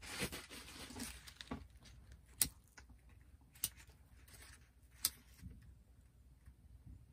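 Crumpled newspaper rustling in the hands, then three sharp clicks about a second and a half apart as a lighter is struck without the flame catching.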